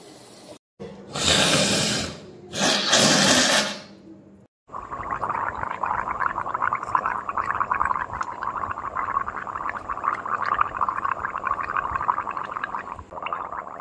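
A person gargling: a long, steady bubbling in the throat from about five seconds in, after two short, loud, rough blasts of breath near the start.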